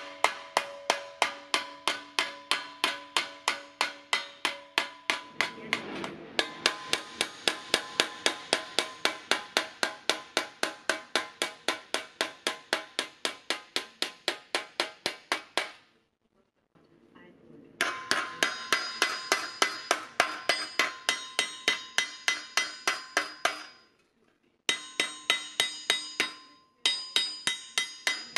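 Steel hammer striking sheet steel against the edge of a steel anvil block in a quick, steady rhythm of about four blows a second, each with a short metallic ring, pausing a few times: the sheet's bead is being bent into a curve by hand hammering.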